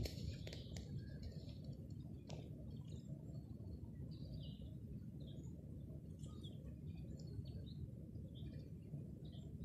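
Songbirds chirping faintly, many short high chirps scattered throughout, over a steady low rumble.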